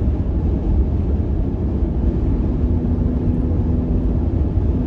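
Steady engine and road rumble of a car in traffic. A steady droning tone comes in about two seconds in and fades near the end.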